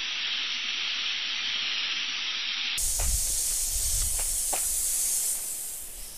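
Water spraying from a garden hose nozzle: a steady hiss. About three seconds in it changes abruptly to a brighter hiss with a low rumble underneath, then fades out near the end.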